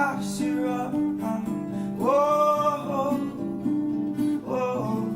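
Closing bars of a song: guitar playing, with a long wordless sung note in the middle and a shorter one near the end, the music dying away at the very end.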